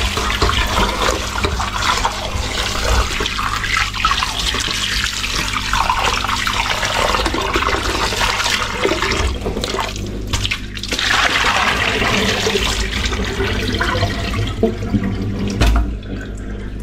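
Kitchen tap running into a stainless steel bowl and sink while hands swish and rinse fish pieces, water splashing. Near the end the splashing eases off and there is a single knock as the metal bowl is handled.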